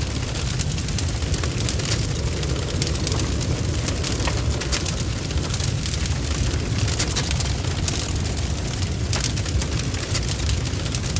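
A large blaze burning: a steady deep roar with frequent sharp crackles and spitting.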